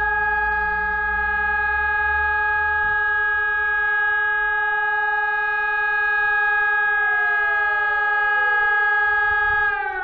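Rooftop civil-defence siren holding one steady note. About seven seconds in, a second siren at the same pitch starts winding down, and just before the end the main siren's pitch begins to fall as it winds down too.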